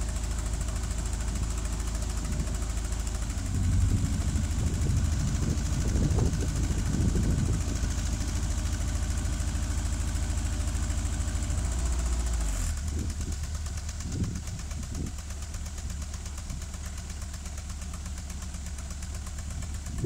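Boom lift's engine running steadily, then dropping to a lower, quieter idle about thirteen seconds in.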